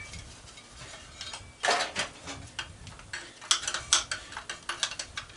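A socket clinking and scraping against a nut and the metal of an aluminum light fixture as it is worked down into a tight spot. There is a louder clatter about two seconds in, then a run of quick metallic clicks.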